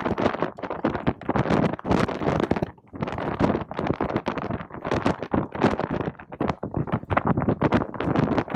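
Strong gusting wind buffeting the microphone, loud and irregular, with rapid swells and brief lulls.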